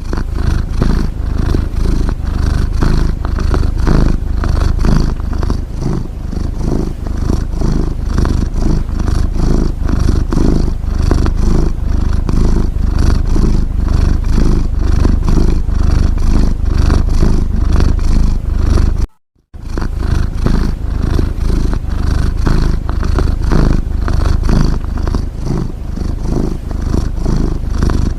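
Domestic cat purring steadily in a continuous rapid rumble, cutting out for a moment about nineteen seconds in.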